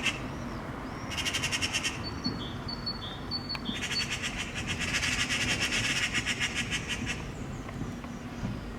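Eurasian magpies giving their rapid rattling alarm chatter, the mobbing call they use against a cat threatening their fledgling. It comes in two bouts: a short one about a second in and a longer one from about four to seven seconds in.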